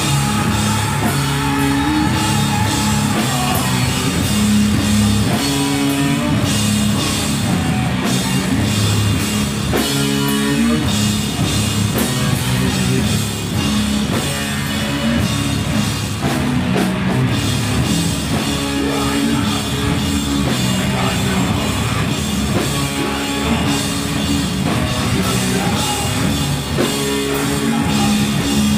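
Stoner rock band playing live and loud: a heavy, sustained riff on distorted electric guitar and bass over a full drum kit with cymbals.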